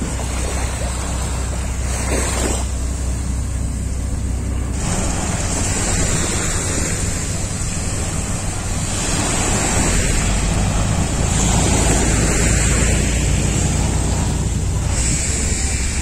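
Beach ambience: small waves washing onto the sand, with wind rumbling on the microphone.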